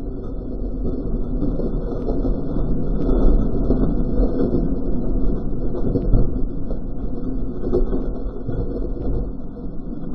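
Dirt bike engine running, its level rising and falling, with peaks about three and six seconds in.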